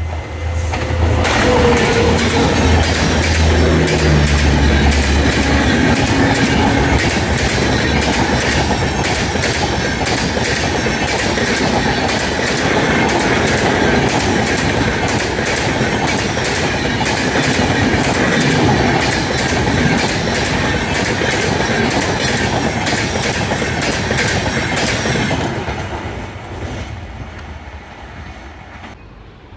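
Passenger train passing at speed. A low locomotive hum comes in the first few seconds, then a long run of coaches with wheels clattering over the rail joints. The clatter fades away over the last few seconds.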